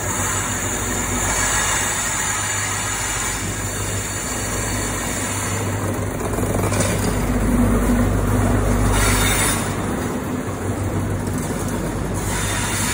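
InterCity 125 (HST) power car's diesel engine running as the train pulls into the platform, a steady low rumble that swells as the power car passes close, about seven to nine seconds in, then eases as the coaches roll by.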